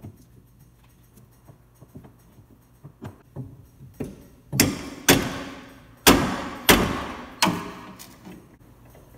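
A chisel prying at the split taper bushing of an electric motor's belt sheave makes faint metal clicks. Then, about halfway through, come five hard hammer blows on the chisel, each ringing briefly, driving it into the bushing's split to spread the collar loose from the shaft.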